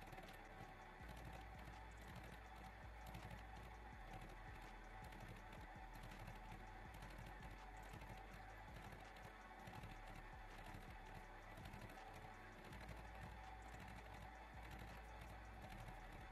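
Faint, steady running of an old German horizontal milling machine, its cutter chattering through a brass gear blank: a fast, even ticking over a steady tone.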